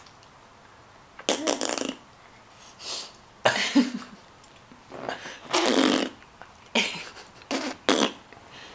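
A young child making a string of short, raspy mouth and throat noises, about seven in all, in imitation of their father.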